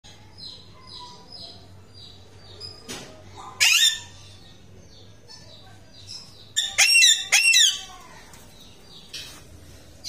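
Alexandrine parakeets screeching loudly and harshly: one burst a little before four seconds in, then a run of about four screeches from about six and a half to eight seconds. Between them are faint, quickly repeated high chirps.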